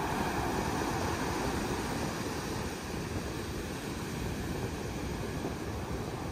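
Sea surf breaking and foam washing up a sandy beach: a steady rush of noise with a deep rumble underneath, from rough surf ahead of a storm.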